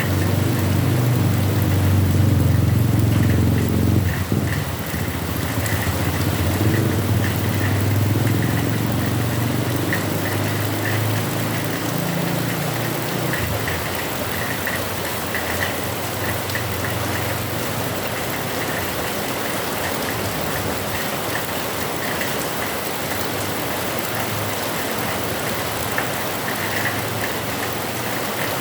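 Heavy rain falling steadily, with a low rumble during the first half that dies away about thirteen seconds in.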